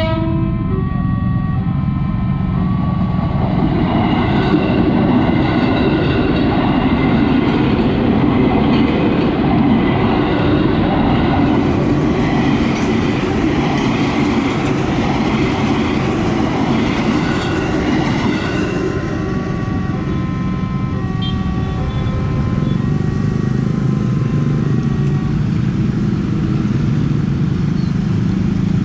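A KRL electric commuter train passes over the level crossing, with a loud rumble of wheels and running gear for about fifteen seconds. The crossing's warning bell rings in short repeated tones before the train arrives and again after it has gone.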